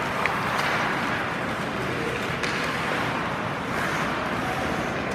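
Steady ice-rink noise during a hockey game: skates scraping the ice, with a couple of sharp clicks from sticks or the puck.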